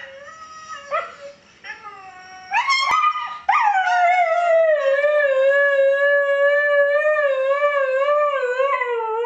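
Siberian husky howling. A few short whining yelps come first. About three and a half seconds in, a long howl starts high, drops, and is held with a slow waver.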